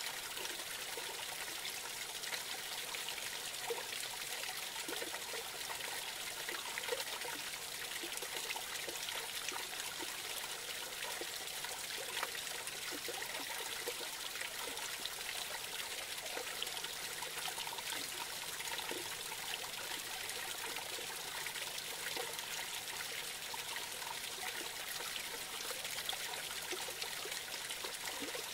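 A small creek trickling and splashing over a low cascade in a steady babble, with frequent small plops.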